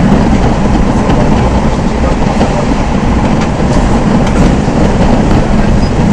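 Z 5600 double-deck electric train running at speed, heard from inside the carriage: a steady, loud rumble of wheels on the rails with a few faint clicks.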